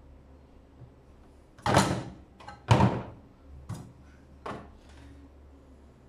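Handling knocks as a clamp multimeter is picked up and set against a plastic refrigerator fan assembly on a table: two sharp knocks with a short scrape, about a second apart, then two lighter taps.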